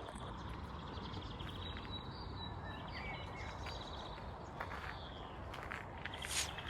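Forest songbirds singing: repeated high trills and short chirps, over a steady low rumble. A brief rustling noise comes near the end.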